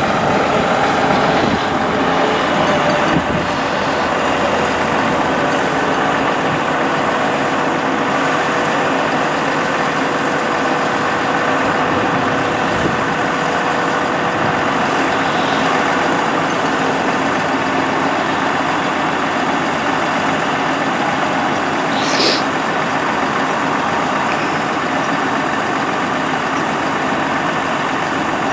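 Diesel engine of a Dodge 5500 bucket truck running steadily, driving the PTO hydraulic pump while the Altec boom raises and extends. A faint steady whine stops a little past halfway, and a brief sharp sound comes near the end.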